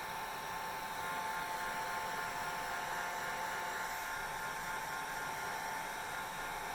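Hair dryer running steadily: an even rushing airflow with a constant motor whine through it.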